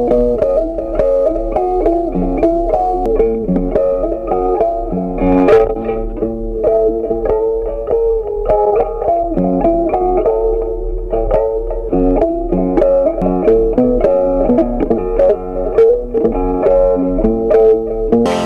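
Background music: a plucked guitar melody, notes changing quickly at a steady pace.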